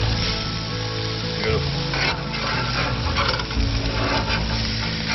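King George whiting fillets sizzling skin-down on a hot gas barbecue grill, a steady frying hiss. A metal spatula scrapes along the grill as it slides under the fillets, about two seconds in and again a little later.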